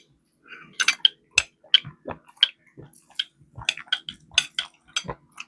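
Close-miked chewing of fried chicken: irregular crunches and mouth clicks, about two or three a second.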